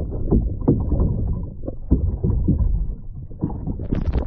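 Muffled underwater sound picked up by a camera below a kayak: a steady low rumble of water moving past the housing, with irregular dull knocks and thuds.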